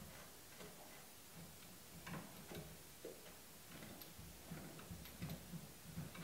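Faint, irregular clicking as the nut on top of a Ridgid oscillating spindle sander's spindle is turned down, squeezing the rubber drum out against the sandpaper sleeve.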